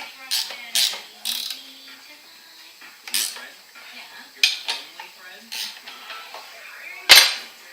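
Metal objects clanking and clinking as they are handled and set down, about eight separate sharp strikes at uneven intervals, the loudest near the end.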